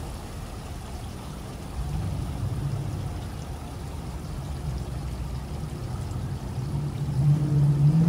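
Water sheeting down the textured stone panels of a water-wall fountain, a steady rush. A low mechanical hum comes in about two seconds in and swells to its loudest near the end.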